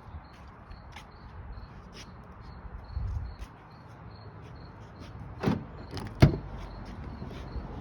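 Two sharp clunks about three-quarters of a second apart, the second louder: a Ram 1500 pickup's door unlocking and its latch releasing as the handle is used. Crickets chirp steadily behind.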